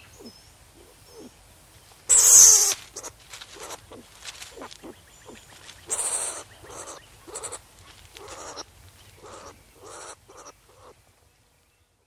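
Skunk calling: faint short chirps, then a sudden loud harsh hiss-like call about two seconds in, followed by a rapid series of shorter raspy calls with another loud one about six seconds in.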